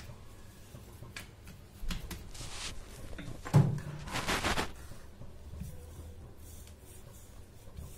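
Kitchen handling noises as folded dough is flipped and a wooden rolling pin is taken up and rolled over it on the counter: a few light knocks, the loudest about halfway through, then a faint rolling rumble.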